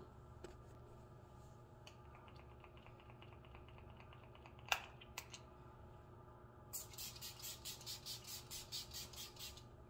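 Pump-spray bottle of rose water hydrating face mist spritzing rapidly, about five quick hissing sprays a second for nearly three seconds near the end. A single sharp click comes about halfway through.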